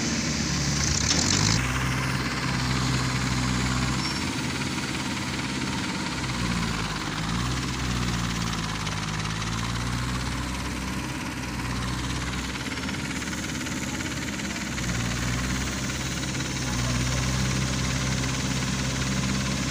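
Tractor engine running steadily, its speed dipping and picking up again a couple of times in the middle as it labours to pull a vehicle stuck in soft mud.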